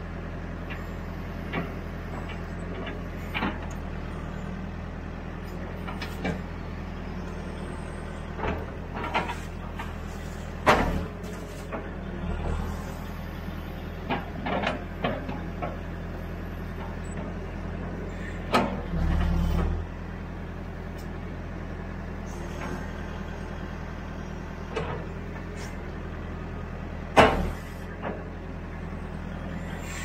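Backhoe's diesel engine running steadily while the digging arm works, with sharp knocks and clanks from the bucket and boom scattered throughout, the loudest about a third of the way in, a little past the middle, and near the end.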